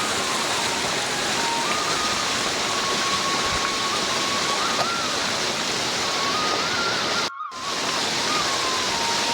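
Steady rushing noise of flowing water, like a stream or waterfall, with a faint thin tone that shifts up and down in pitch in small steps. The sound cuts out to silence for a moment about seven seconds in.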